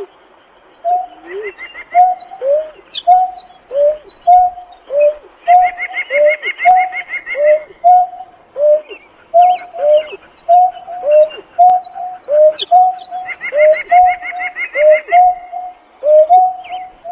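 Greater painted-snipe calling: a long, even series of low hooting notes, about two a second, each sliding down at its end. It is the call it uses to gather its flock. A rapid, higher trill comes in three times over the hoots.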